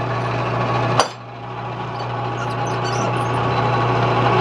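Metal lathe running steadily, with one sharp knock about a second in; after the knock the machine sound drops briefly and then builds back up.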